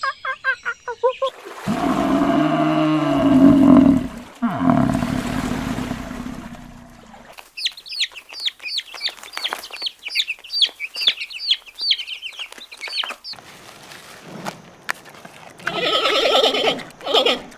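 A series of animal calls: a loud, low-pitched call lasting several seconds, then a run of rapid high chirps, and a short harsh call near the end.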